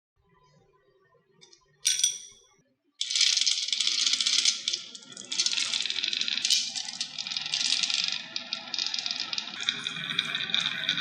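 A single ringing clack about two seconds in, then many marbles rolling and clattering down a wooden HABA marble run track, a dense continuous rattle of small clicks.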